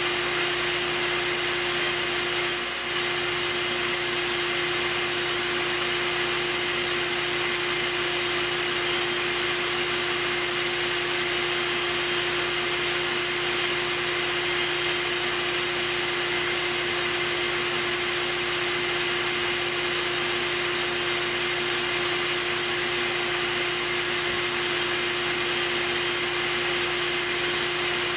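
A vacuum motor runs steadily, a constant whine over rushing air, as when a bee vacuum is used to suck bees out of a hive.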